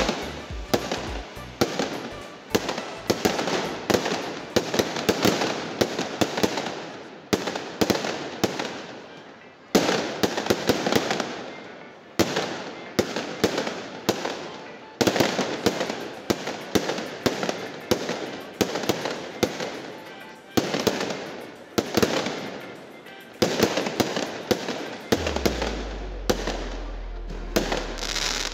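Fireworks display: aerial shells bursting in rapid volleys, sharp bangs several times a second with crackling tails, a few heavier bangs standing out.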